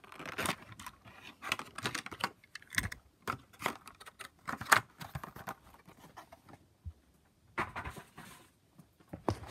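Irregular clicks, taps and rustles of a phone being handled and brushed against fabric close to its microphone, with a short lull about two-thirds of the way through.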